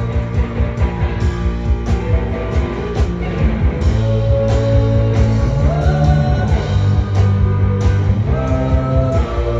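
A live rock band playing, with guitar over a steady beat.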